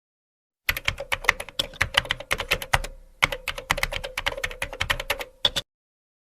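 Typing on a computer keyboard: a fast, uneven run of key clicks with a short pause about halfway through and one last keystroke near the end.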